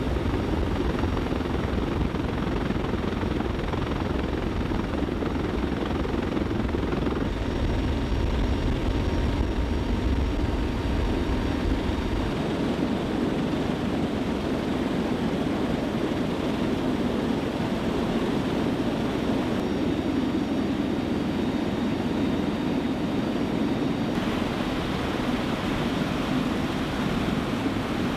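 Military helicopter running: a steady, loud whir of rotors and turbine. The deep low rumble drops away about twelve seconds in, and the noise carries on.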